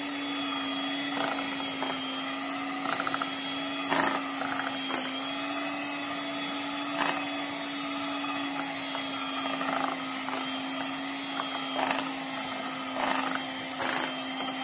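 Electric hand mixer running steadily at speed, its beaters whipping cream in a glass bowl, with a steady hum and high whine and a few short knocks.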